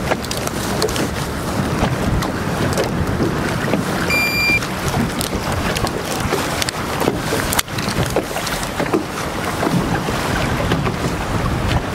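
Wind rushing over the microphone on an open boat deck, steady throughout, with faint handling clicks. About four seconds in, a single short high electronic beep.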